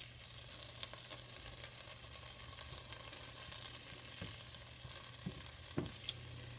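Butter melting and sizzling faintly in a hot stainless steel pan, with a steady soft hiss as a silicone spatula pushes it around; a few faint taps of the spatula against the pan.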